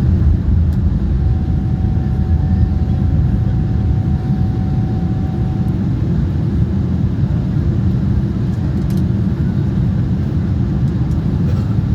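Steady low rumble of an Airbus A340 airliner during its landing. A faint steady whine joins it for about four seconds early in the clip.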